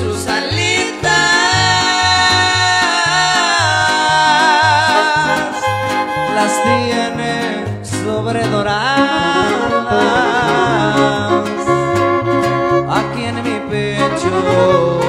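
Live trio music: a violin plays a wavering melody with vibrato over strummed guitars that keep a steady, even beat.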